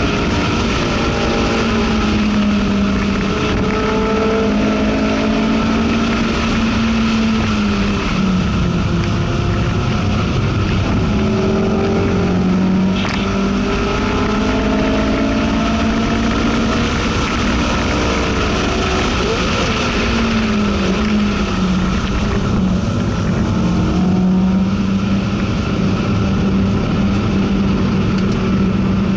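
Honda S2000 AP2's 2.2-litre inline-four heard from inside the cabin under hard track driving. Its pitch climbs as the car pulls and falls away twice, about a quarter and two-thirds of the way in, over steady road and wind noise.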